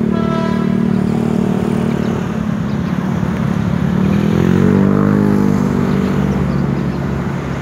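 Approaching electric commuter train with a loud, steady mechanical whine. Its pitch slides up and then back down about halfway through.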